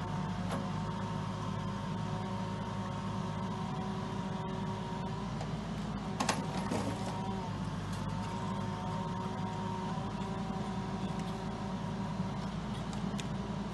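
Vimek 610 SE forwarder's diesel engine running steadily, with a hydraulic whine that shifts in pitch as the crane swings and lifts logs. A sharp knock about six seconds in.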